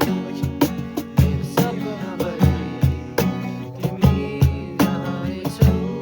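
Music with a steady beat of about two strokes a second over held pitched notes.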